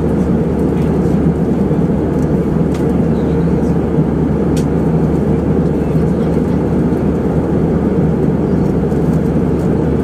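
Steady cabin noise of an airliner in cruise: the constant low rush of engines and airflow heard from inside the cabin by a window seat.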